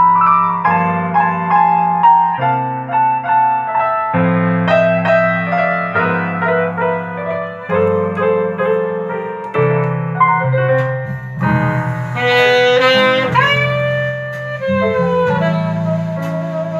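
Recorded instrumental music, a saxophone melody over piano, played back through an Altec 32A right-angle horn loudspeaker.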